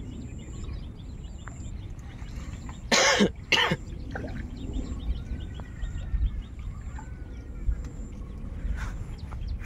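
A person coughs twice in quick succession about three seconds in, the two coughs the loudest sounds here, over a faint outdoor background.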